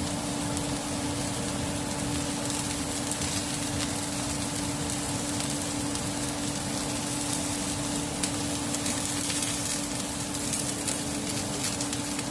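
Scored baby trumpet mushrooms searing in a pan on high heat, a steady sizzle, with a constant low hum beneath it.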